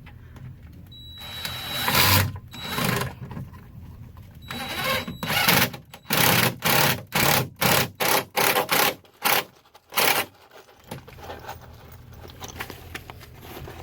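Cordless impact driver driving sheetrock screws through a junction box's metal mounting plate into a wooden joist: two longer runs with a steady motor whine, then a string of short trigger bursts about two a second, as a screw is run home.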